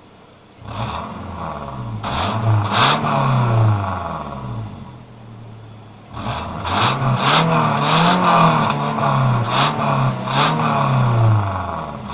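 Turbo whistler in the exhaust of a 2004 Daihatsu Xenia's 1300 cc engine, revved in a string of short blips: each rev brings a brief high whistle over the rising and falling engine note. A first pair of revs, a short lull, then about eight more in quick succession.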